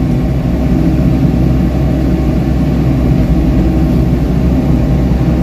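Komatsu PC78US mini excavator's diesel engine running steadily, heard from inside the cab, as the bucket digs into the soil.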